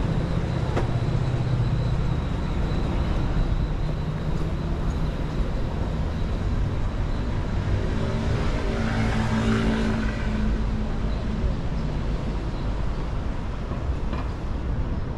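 City street traffic: motor vehicles running and passing, with a steady low rumble. One vehicle passes close about eight to ten seconds in, its engine hum standing out above the rest.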